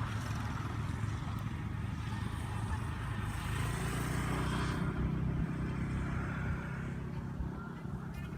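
A motor engine running steadily, a little louder about halfway through and easing off near the end.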